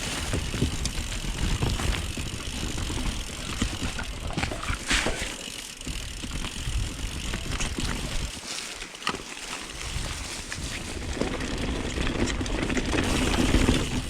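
YT Jeffsy mountain bike ridden over a dirt trail: tyre noise and constant small rattles and clicks from the bike, with a low wind rumble on the chest-mounted camera's microphone. The rumble eases for a moment about eight seconds in, then builds again near the end.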